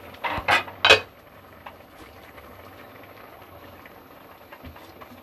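A pot lid is set down with three quick clanks, the last one ringing, about half a second to a second in. Then the soft sound of minced mutton simmering in a pot, stirred with a wooden spatula.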